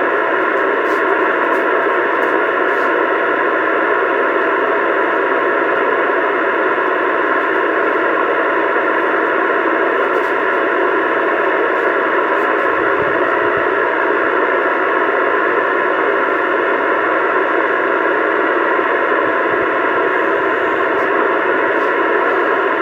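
CB radio receiver hissing with steady static through its speaker, no voice on the channel.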